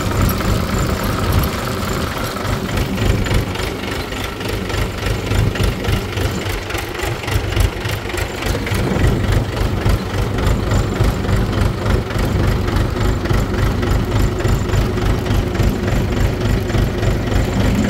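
Mahindra 475 DI tractor's diesel engine running steadily at low speed.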